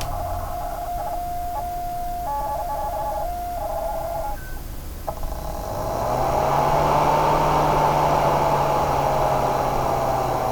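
Corsair GS600 power supply making a strange tonal whine, a defect in the unit. For the first few seconds the whine jumps between a few steady pitches; about six seconds in it turns louder and slowly rises and falls in pitch, over a low hum and rushing fan noise.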